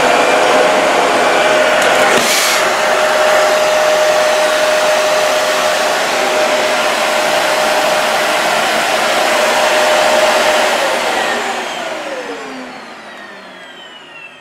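Dyson DC40 MKII upright vacuum cleaner running steadily on a rug, then switched off about eleven seconds in, its motor whine falling in pitch as it spins down.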